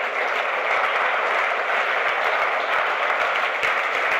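Audience applauding after a lecture: steady, dense clapping from a large seated crowd in a hall.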